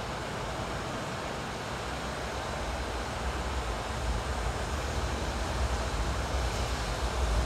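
Wind rushing steadily, with a low rumble of gusts buffeting the microphone, growing a little louder toward the end.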